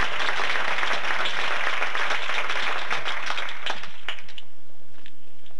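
An audience applauding, thinning to a few scattered claps about four seconds in.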